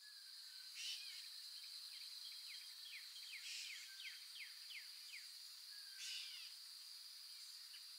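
Faint outdoor nature ambience: a steady high insect drone, with a bird giving a run of quick descending chirps in the middle and a few short calls about a second in, at three and a half seconds and at six seconds.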